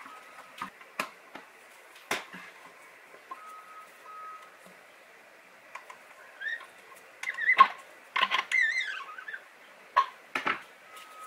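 Scattered clicks and knocks of a wrench and a metal valve stem worked against a hard plastic bottle as the valve stem is tightened into place, with a louder run of knocks and a short wavering squeak about two-thirds of the way through.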